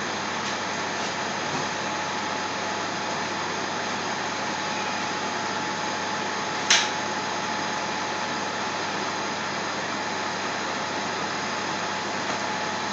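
Steady rushing kitchen noise with a faint steady whine, broken by one sharp click about two thirds of the way through.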